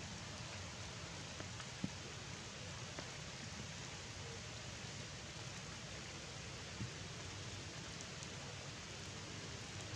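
A steady, even outdoor hiss, with two soft taps, one about two seconds in and one about seven seconds in.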